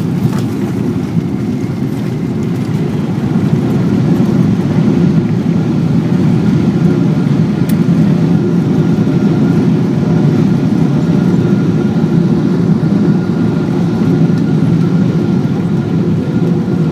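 Loud roar inside the cabin of a Boeing 777-200 rolling out on the runway after touchdown. It swells over the first few seconds, holds steady, then eases a little near the end, with a faint steady whine over it.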